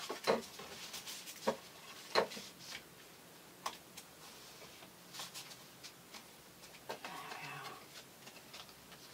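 Paper and card being handled and pressed down on a wooden tabletop: scattered light taps and clicks, with a short soft rustle of paper about seven seconds in.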